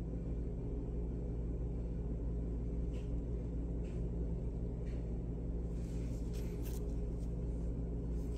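Steady low room hum with a faint drone of several even tones, with a few faint clicks and small handling noises, more of them toward the end.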